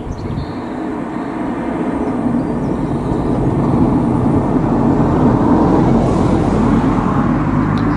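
Rushing engine noise of a passing vehicle, building gradually over several seconds and then staying loud.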